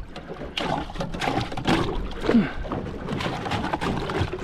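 Trevally frame being crushed in a burley pot: irregular crunching, cracking and knocking of fish bones.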